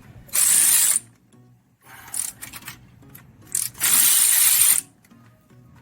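Bursts of pressurised hissing: a steady hiss of under a second near the start, a few short hisses in the middle, and a longer hiss of about a second near the end.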